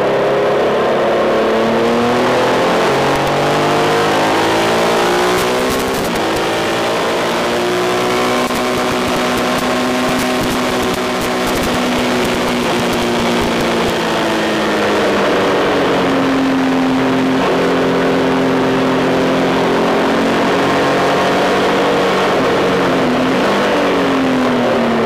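Triumph Tiger 1200's three-cylinder engine pulling hard at speed, its pitch climbing and falling back several times as the bike accelerates and shifts, over a steady rush of wind and road noise.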